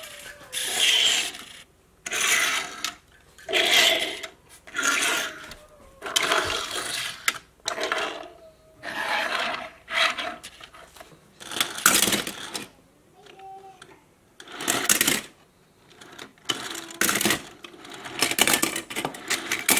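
Die-cast metal toy cars rolled along a hard tabletop and set down in a row: a run of short rattling rolls of small plastic wheels, one every second or so.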